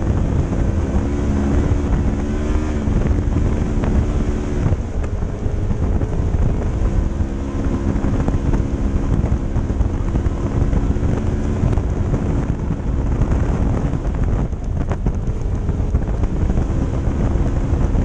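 Polaris RZR XP1000's twin-cylinder engine running under way, its revs rising and easing off a few times, over a constant low rumble with heavy wind on the microphone.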